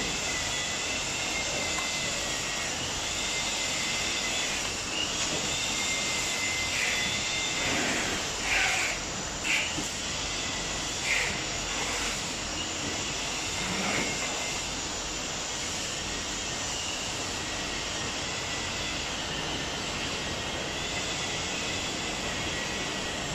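Steady mechanical whir with a faint wavering high whine over it, and a few short knocks and clinks between about eight and fourteen seconds in.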